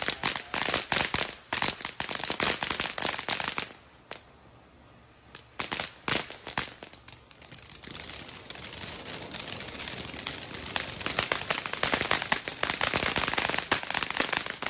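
Consumer fireworks going off in rapid strings of sharp pops and crackles. There is a pause of about a second and a half in the first half, then a denser, continuous crackling that builds toward the end.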